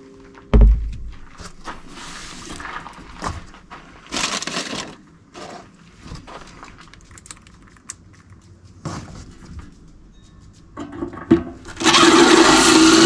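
Scattered knocks and clunks of metal parts and a power drill being handled between drilling, with a loud low thump about half a second in. Near the end a loud steady sound with a hum starts up and keeps running.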